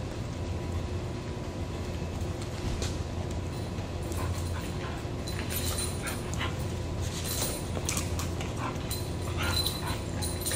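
Dog whimpering and giving small yips while jumping up and tugging at a toy, with short scuffling sounds from its movement that come mostly in the second half.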